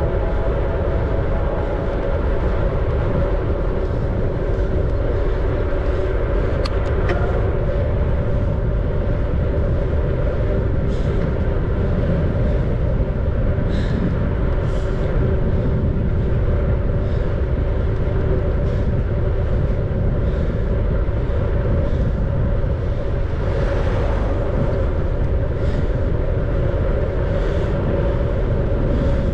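Steady rolling noise of a bicycle in motion, with a continuous low rumble and a steady hum, and a few brief clicks.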